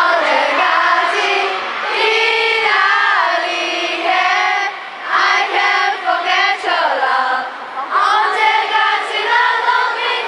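Crowd of fans screaming and calling out together in high voices, many voices overlapping in held, wavering cries that rise and fall in waves.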